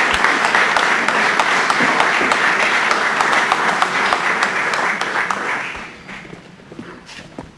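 Audience applauding: a dense patter of hand-clapping that dies away about six seconds in, leaving a few scattered claps.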